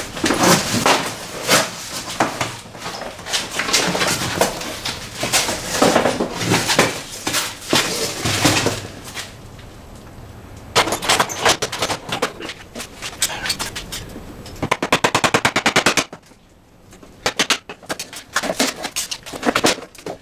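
Cardboard box and plywood shipping crate being handled and set down, with knocks and scrapes of wood, then a hammer knocking and prying at the crate's nailed plywood lid. A quick run of sharp taps comes about three-quarters of the way through.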